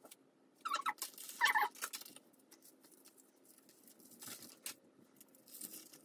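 Aluminium highlighting foils crinkling and rustling in short, scattered crackles as they are pulled out of wet, bleached hair. About a second in there are two short high-pitched squeaks.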